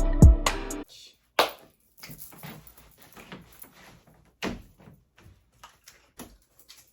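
Background music that cuts off about a second in, followed by scattered knocks and taps of things being handled, two of them louder than the rest.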